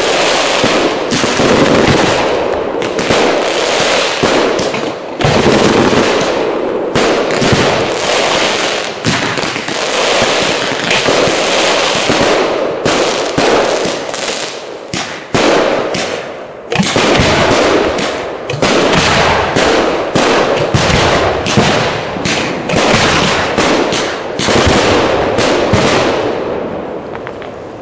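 Fireworks display: a dense barrage of rapid bangs and crackling shells going off almost without pause, with a couple of brief lulls, dying away near the end.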